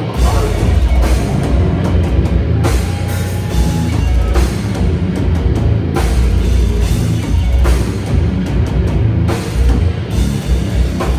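Slam death metal band playing live: heavy, down-tuned guitars and bass over a pounding drum kit, with loud cymbal crashes every few seconds.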